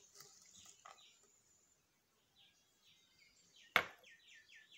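Quiet kitchen sounds: a soft patter as chopped banana flower is tipped into a bowl, then one sharp knock a little under four seconds in. Faint short falling bird chirps repeat in the background, coming thicker near the end.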